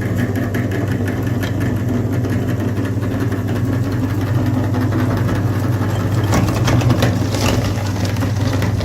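Electric grinder motor running steadily with a low hum, with small crackling clicks from the material being crushed inside.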